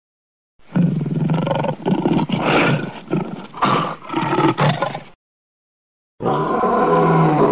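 Lion roaring, the roar of the Metro-Goldwyn-Mayer logo: a run of several growling roars for about four and a half seconds, a short break, then one more long roar about six seconds in.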